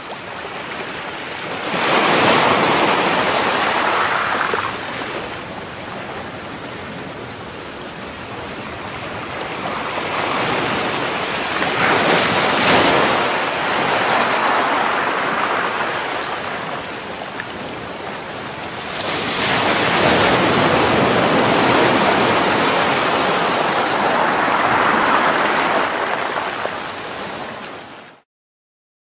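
Wind and waves on a choppy sea: a rushing noise that swells and fades three times in long gusts, then cuts off suddenly near the end.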